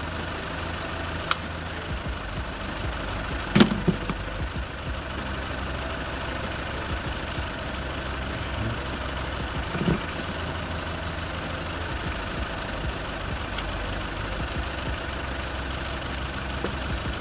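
Four-cylinder petrol engine idling roughly on three cylinders, one cylinder dead. The idle stays the same while a coil is pulled, which marks that cylinder as the dead one. A few sharp clicks from pliers on the coil packs, the loudest about three and a half seconds in.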